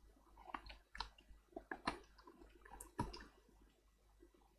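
Faint, scattered clicks and scratches of a cheap tablet's glued edge being pried and scraped, taking off the adhesive. They stop a little after three seconds in.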